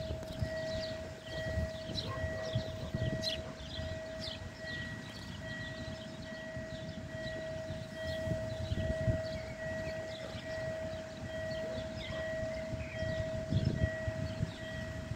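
Railway level-crossing warning signal sounding an evenly pulsing electronic tone, warning that a train is approaching.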